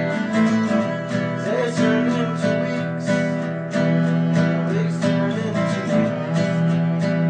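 Background music led by strummed acoustic guitar, with a steady strumming rhythm.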